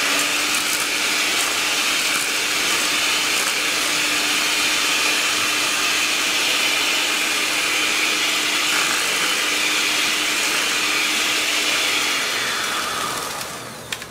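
Electric hand mixer running steadily at one speed, a motor hum under the whir of its beaters creaming egg yolks and sugar in a stainless steel bowl; it winds down and stops near the end.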